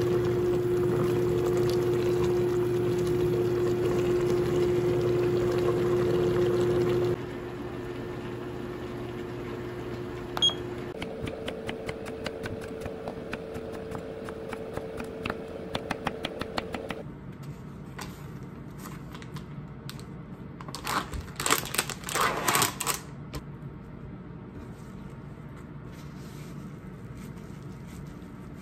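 Stew simmering in a pot on an induction cooktop, with a steady hum. Then a kitchen knife slicing an eggplant on a wooden cutting board in a quick even run of chops. About two-thirds in comes a loud rustle of paper towel being pressed onto fried tofu.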